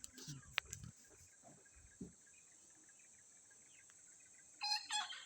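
A cock crowing once, briefly, near the end, over a steady high-pitched insect drone. A few faint knocks in the first second.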